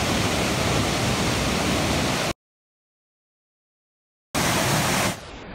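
Steady rush of a waterfall over rocks, cut by about two seconds of dead silence a little over two seconds in. It comes back briefly, then drops to a quieter, duller hiss near the end.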